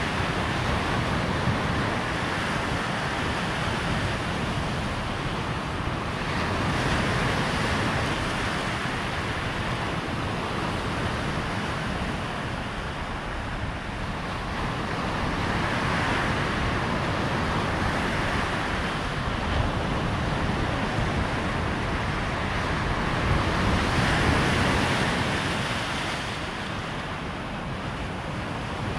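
Surf breaking on a sandy shore, a continuous wash that swells in three surges about eight or nine seconds apart, with wind rumbling on the microphone.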